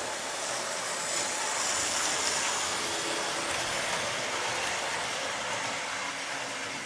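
Model electric train in Flying Scotsman livery running along the layout track, a steady whirr of motor and wheels that swells about two seconds in. It is running smoothly.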